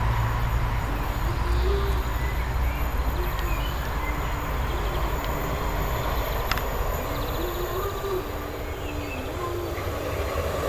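Steady low rumble of rail traffic, with a faint held tone that steps up and down in pitch.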